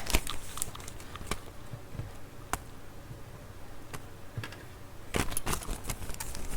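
Scattered light clicks and knocks of objects being handled, a few spread out at first and a quicker cluster near the end.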